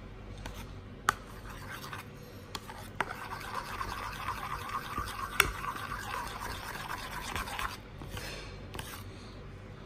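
Metal spoon stirring a thick, creamy dressing in a bowl: continuous scraping against the bowl, busiest in the middle, with a few sharp clinks of the spoon against the bowl's side.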